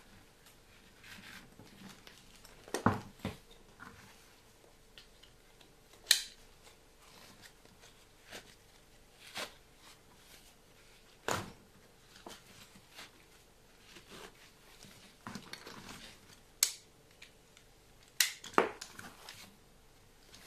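Handling noises from an insulated food delivery backpack: nylon fabric and webbing straps rustling as the bag is turned and its straps are moved. A handful of sharp clicks and knocks are spread through, two close together near the end.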